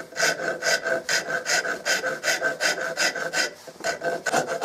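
Coarse file rasping across a walnut gunstock in quick, even strokes, about five a second, with a short pause about three and a half seconds in before a few more strokes. The file's big teeth are taking wood off fast to rough-shape the stock.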